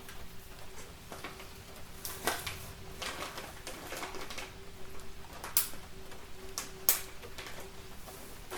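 Wood fire crackling in a fireplace, with a handful of sharp pops, the loudest about two-thirds of the way through, over a faint steady hum.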